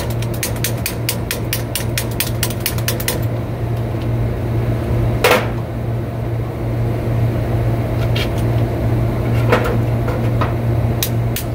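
Fast metal-on-metal tapping, several strikes a second, as the key is driven into the keyway of a blower pulley on its shaft. The tapping stops after about three seconds, a few single heavier knocks follow, and the fast tapping starts again near the end. A steady low machinery hum runs underneath.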